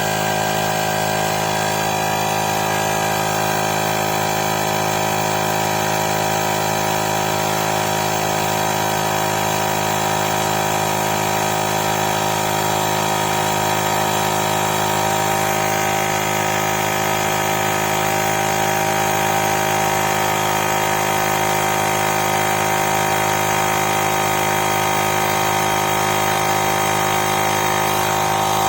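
Woowind AP2-P cordless electric tyre inflator running steadily as it pumps up a tyre toward its preset target pressure, a constant motor-and-piston hum with a higher whine.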